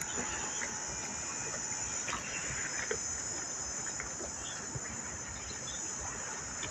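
Steady, high-pitched chorus of insects, with a few faint scattered ticks.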